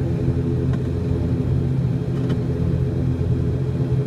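ATR 72-600 turboprop engine and six-blade propeller droning steadily, heard from inside the passenger cabin: a low hum made of several steady pitches.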